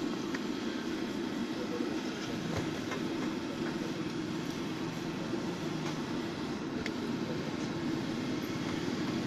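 Samosas deep-frying in a large kadai of hot oil over a gas burner: a steady low roar with sizzling, and a few light clicks.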